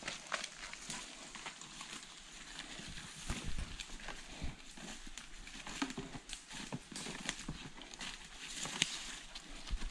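Footsteps and rustling in dry leaf litter as a person and a dog walk up, with irregular soft steps and scattered snaps of twigs and leaves.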